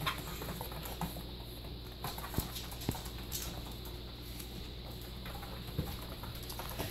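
Dogs' and puppies' paws padding about on foam floor mats, with a few scattered light knocks and clicks over a steady low hum.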